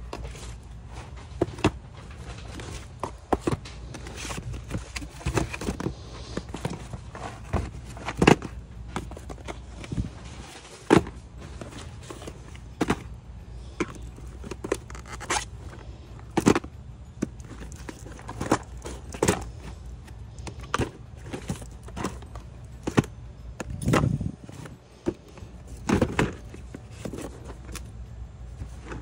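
Cardboard jigsaw puzzle boxes being shuffled, slid and knocked against each other and against a cardboard floor display, giving irregular taps and thuds, over a low steady hum.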